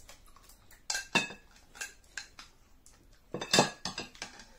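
Plastic spoon clinking and scraping against a ceramic bowl that is nearly empty: a string of sharp clinks, the loudest cluster about three and a half seconds in.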